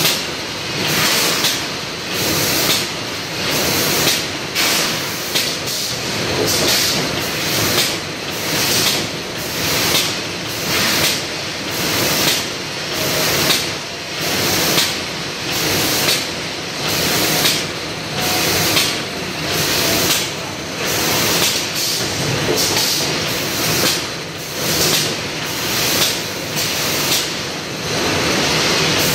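ABB delta robot packing line running: a steady mechanical din with a short burst of air hiss about once a second, typical of the pneumatic gripper valves venting on each pick-and-place cycle.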